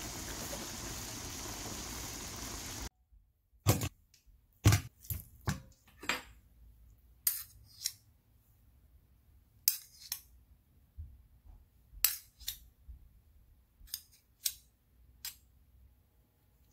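A pan of saucy chicken sizzles steadily for about three seconds, then stops abruptly. A metal spoon then clinks and taps irregularly against a stainless steel mixing bowl as sauces are spooned onto raw chicken pieces.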